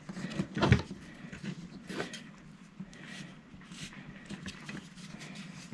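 Knocks and light clicks as a wooden strip fitted with an aluminium edge guard is handled and pressed against a wooden workbench. The loudest knock comes under a second in, another at about two seconds, and a sharp one at the very end.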